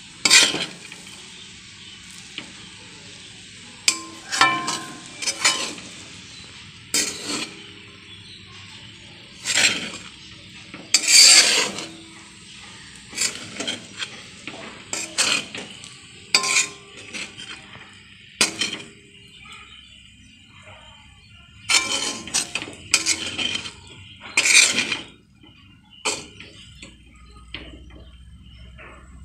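Metal spatula scraping and stirring fried rice around an aluminium kadai, in irregular strokes and clinks every second or two. A light frying hiss runs under the scrapes and fades about two-thirds of the way through.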